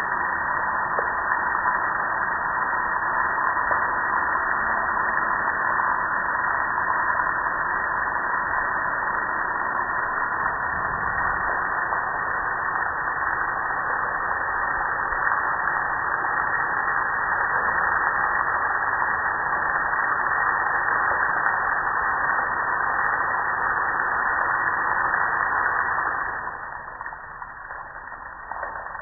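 Steady hiss of a water spray hitting a soapy gas grill, which drops away about three seconds before the end, leaving water dripping and running off.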